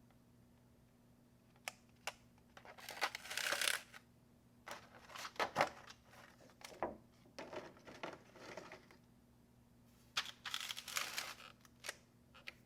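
Packaging of a keycap set being handled: several bursts of crinkling and rustling, with a few sharp clicks and taps between them, over a faint steady hum.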